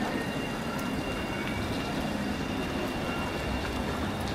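Articulated low-floor city tram rolling away over street track, a steady running noise with a thin, steady high whine through it.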